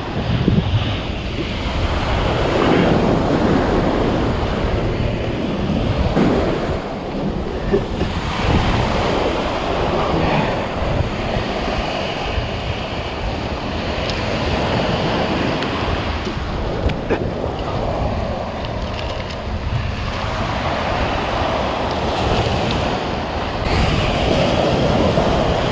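Surf washing on a sand beach, with wind buffeting the microphone and a few brief clicks.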